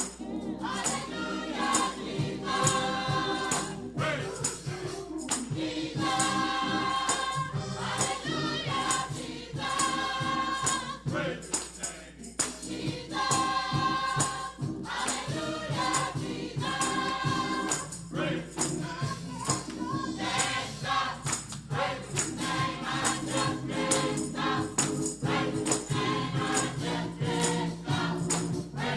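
Gospel choir singing over instruments, with a steady beat.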